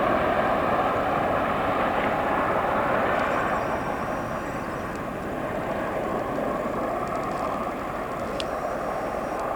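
Bell Boeing MV-22B Osprey tiltrotor's twin turboshaft engines and proprotors running, a steady noise that slowly fades.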